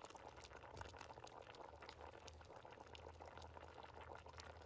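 Faint bubbling and popping of fish-head broth simmering in a wide pan, with a ladle of broth poured back into the pan near the start.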